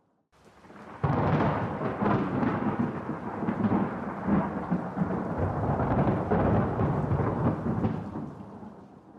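Thunder: a rumble that jumps up sharply about a second in, rolls on for several seconds, and fades away near the end.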